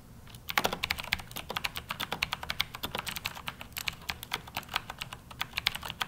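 Two-handed typing on a Corsair mechanical keyboard with Cherry MX Blue clicky switches: a rapid, dense stream of key clicks, starting about half a second in.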